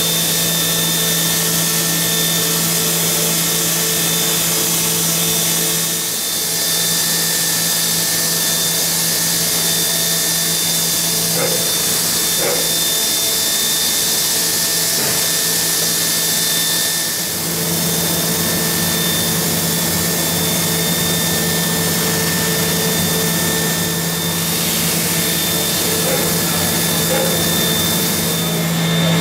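Matsuura MAM-500HF horizontal machining centre milling metal with a small end mill under coolant spray. Its spindle runs at about 10,000 rpm, giving a steady hum with high whining tones over a constant hiss of spray and cutting.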